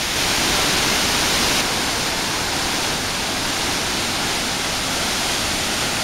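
Steady rushing of Shiraito Falls, a wide curtain of many thin streams of water falling down a cliff face, a little louder for the first second and a half.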